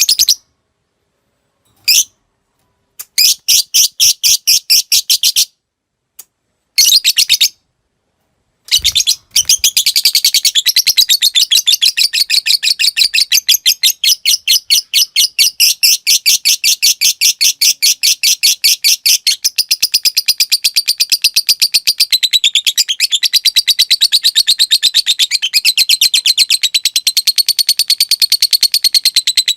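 Lovebird chattering: a few short bursts of rapid, high clicking notes ('ngetik'), then from about nine seconds a long unbroken rapid chatter, the 'ngekek panjang' prized in fighter lovebirds.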